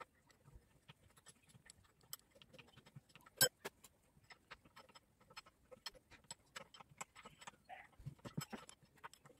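Scattered light clicks and clinks of metal parts and hand tools being worked on a walk-behind tractor's engine, with one sharper clank about three and a half seconds in.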